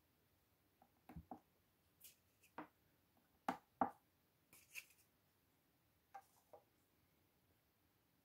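A run of soft clicks and taps from a Kern EMB 500-1 digital balance as its keypad is pressed and a small plastic weighing boat is set on its pan; the two sharpest clicks come close together about three and a half seconds in.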